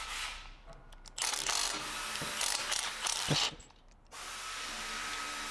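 Handheld power tool running in two spells of about two seconds each, a short gap between them, while a part is being taken off.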